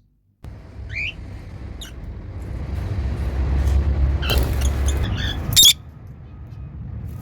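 African lovebirds calling: a short rising chirp about a second in, then two loud, sharp squawks in the second half. Under them a low rumble swells and then eases off.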